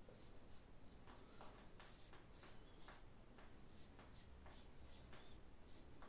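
Mühle R41 double-edge safety razor with a Perma-Sharp blade scraping through lathered beard stubble: short, faint strokes, about two or three a second.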